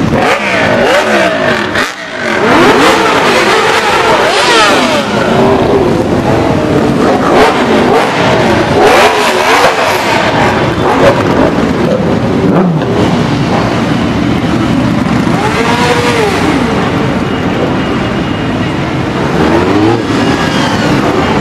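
A column of motorcycles riding past one after another, sport bikes and cruisers overlapping. Their engines rev and their notes rise and fall as each bike goes by.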